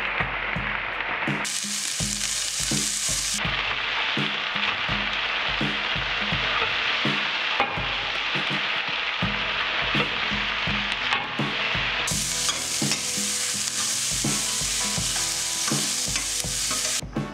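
Sliced carrots, capsicum, mushrooms and onion sizzling in hot oil in a stainless steel wok as they are stirred with a steel ladle. The sizzle grows louder twice and cuts off just before the end.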